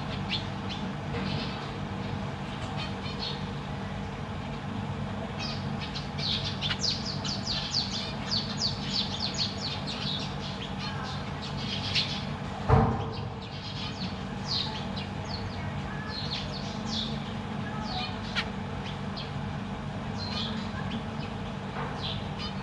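Zebra finches calling with short, high chirps, coming in a quick run for several seconds before the middle and more sparsely after. A single sharp knock a little past the middle is the loudest sound, over a steady low hum.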